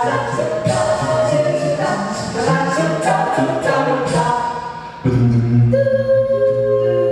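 Seven-voice mixed a cappella group singing into hand-held microphones, several sung parts over a low bass line. About five seconds in the sound dips and then switches abruptly to a loud held chord over a deep bass note.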